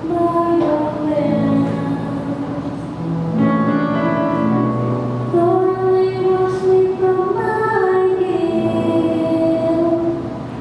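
A choir singing a slow hymn with music, in long held notes; sung between the readings, it is the responsorial psalm.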